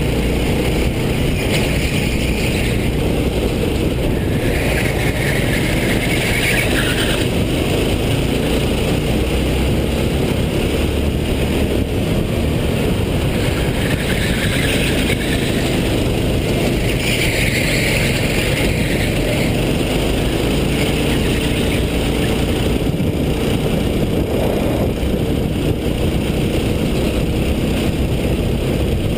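Racing kart engine running at speed, heard from on board the kart. A hiss swells and fades several times over the drone.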